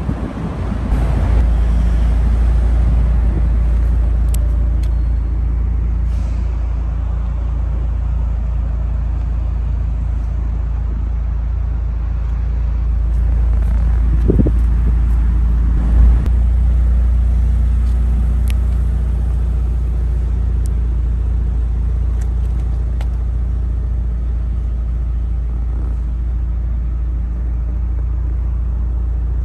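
A car engine idling: a steady low rumble that holds even throughout, with one dull thump about sixteen seconds in.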